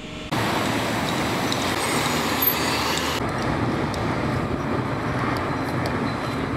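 Steady outdoor street noise of road traffic, a dense rushing din. It starts abruptly just after the start and turns duller about three seconds in.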